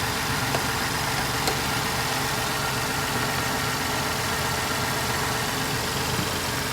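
The 3.5-litre V6 engine of a 2020 Ford Transit 150 running steadily on fresh batteries while its alternator output is tested.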